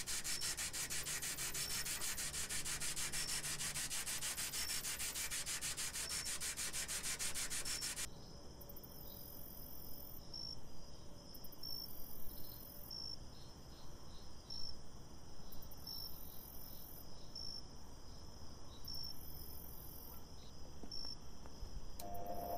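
Wet scrubbing of a rusty perforated metal cylinder in foaming liquid, quick even strokes, stopping about eight seconds in. After that it is quieter, with a short high chirp repeating about every second and a half. Just before the end a bench grinder is switched on and its motor starts to hum.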